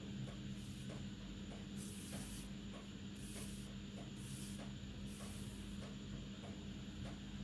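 Black thread being drawn through a coiled crochet yarn mat: about five short, soft hissing swishes as the thread slides through the yarn. Under them run a steady low hum and faint ticking about twice a second.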